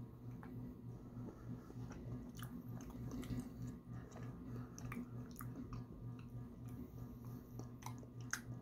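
Close-up mouth sounds of a person biting and chewing a piece of taro fudge: small, irregular clicks and smacks scattered throughout, over a steady low hum.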